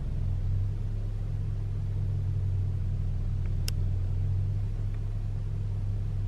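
Engine of a Nissan vehicle idling steadily, heard inside the cab as a low hum. A single sharp click comes a little past halfway.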